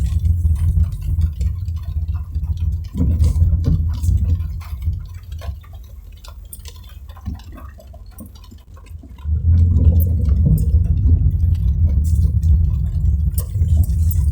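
Car driving in the rain, heard from inside the cabin: a low road and engine rumble with scattered taps of raindrops. The rumble drops away for a few seconds around the middle and comes back strongly about nine seconds in.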